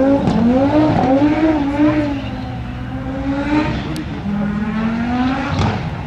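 Audi Sport quattro S1 rally car's turbocharged five-cylinder engine revving hard, its note rising and falling several times, with a sharp crack near the end.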